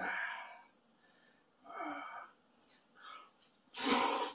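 A person slurping thick ramen noodles, with a loud, hissing slurp near the end that follows a few short, faint mouth sounds.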